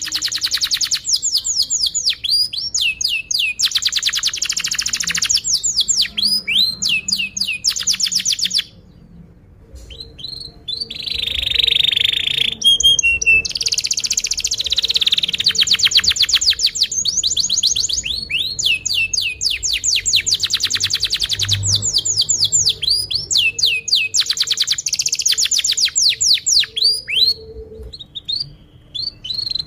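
Domestic canary singing a long, continuous song of rapid trills and repeated downward-sweeping chirps, with a short break about nine seconds in.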